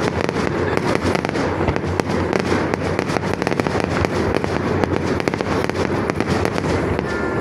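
Fireworks going off in a dense, continuous crackle of many rapid small bangs without a pause.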